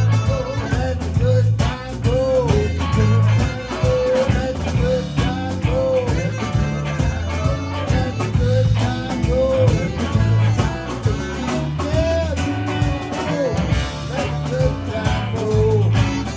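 Live blues band playing, a guitar taking the lead with short notes bent up and back down over a steady, prominent bass line and drums.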